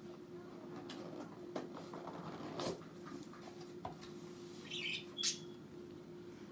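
Cardboard shipping box being opened by hand: rustling and scraping of the flaps and lid, with several sharp clicks and a couple of short cardboard squeaks about five seconds in, over a faint steady hum.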